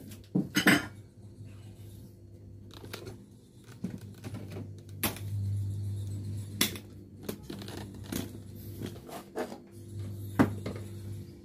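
Scattered light clicks and knocks of kitchenware being handled on a shelf and table, with the sharpest knocks near the start and about ten seconds in, over a steady low mains-type hum.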